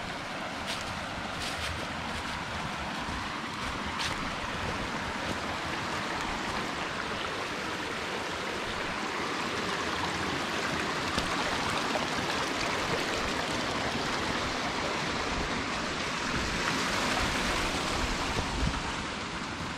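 Stream water rushing steadily over rocks, swelling slightly near the end.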